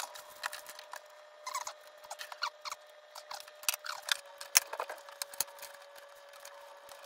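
Small handling sounds of PVC insulating tape being unrolled and wrapped around coax cable: scattered clicks and taps with a few short squeaks of tape pulling off the roll, over a faint steady hum.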